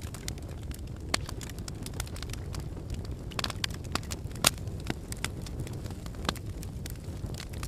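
Wood fire crackling in a fireplace: irregular sharp pops and snaps over a steady low rumble of the flames, with the loudest snap about halfway through.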